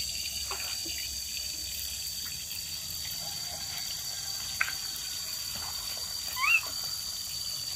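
Water gushing steadily from an above-ground pool's drain spout onto wet ground as the pool is emptied. A sharp click comes a little past the middle, and a short rising squeak near the end.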